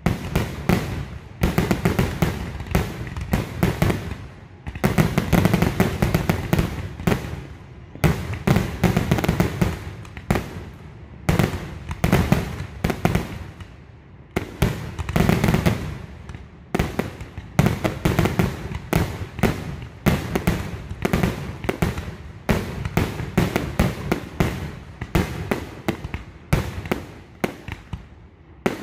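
Professional aerial fireworks display: shells bursting one after another in a rapid, continuous barrage of booms and crackles, several a second, with louder clusters partway through.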